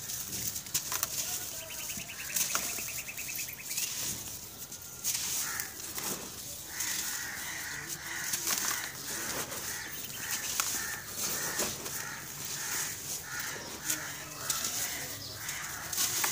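Dry, gritty grey lumps crushed and crumbled between the hands: crackling crunches, with crumbs and powder trickling down. A bird calls over and over in the background through the second half.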